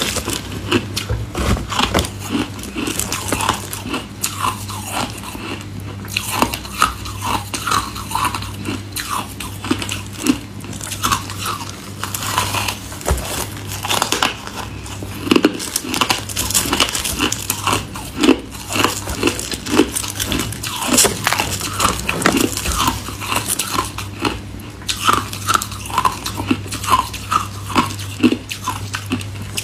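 A person biting off and chewing chunks of snow-like frozen ice, a steady run of crisp, irregular crunches.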